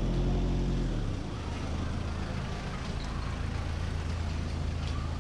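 A motor vehicle's engine running close by, a steady low hum that is loudest for about the first second, over a general street-noise background.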